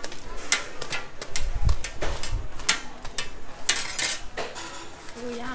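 Metal tongs clicking against stainless-steel trays and a plastic bag crinkling as fried dough snacks are picked up and bagged: a string of sharp clicks and rustles, with a dull low bump about a second and a half in.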